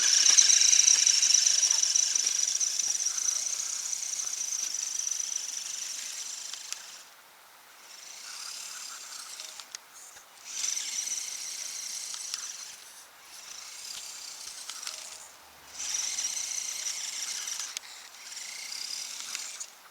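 Axial SCX10 RC crawler's electric motor and drivetrain whining under throttle while plowing snow: one long run that starts loud and fades away, then several shorter bursts of a couple of seconds each with brief pauses between.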